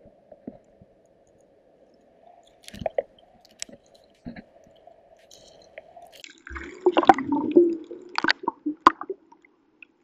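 Muffled underwater water sounds picked up by a submerged camera in a river: a faint steady hum with scattered clicks and knocks, then from about six and a half seconds in a louder stretch of gurgling and sharp knocks.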